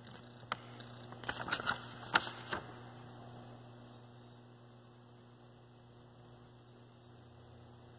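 Paper crackling and rustling as a workbook page is folded and handled, a quick run of short crackles in the first few seconds, then only a faint steady low hum.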